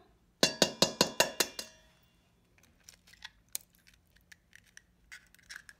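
An egg rapped about seven times in quick succession against the rim of a stainless steel bowl, each knock ringing the metal. Faint small crackles and clicks follow as the shell is broken open.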